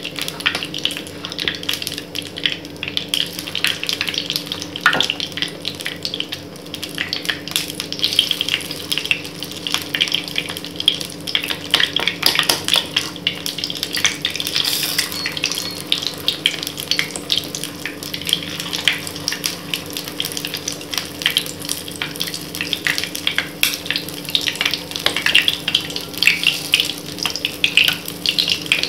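Hot oil crackling and sizzling in the wells of a kuzhi paniyaram pan as spoonfuls of rice-flour batter are dropped in to fry, over a steady low hum.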